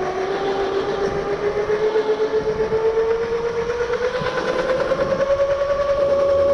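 Razor E325 electric scooter's chain-driven motor whining as it accelerates on extra battery voltage, its pitch climbing slowly and steadily as the scooter gains speed.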